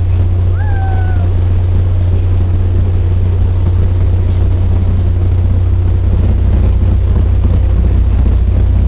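Steady, loud low rumble of a commuter train's diesel engine idling at the platform, with a short falling squeal about a second in.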